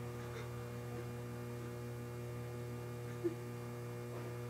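Steady electrical mains hum, a low drone with a ladder of overtones, with one brief faint sound a little over three seconds in.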